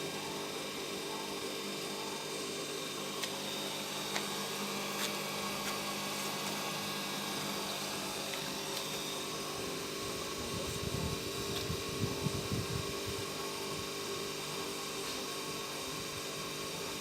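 Siemens WM10A front-loading washing machine running: a steady motor hum with several pitches, a few light clicks, and a brief spell of low thuds about eleven to thirteen seconds in.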